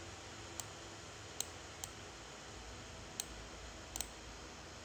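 Computer mouse clicking about five times at uneven intervals, short single clicks over a faint steady background hum.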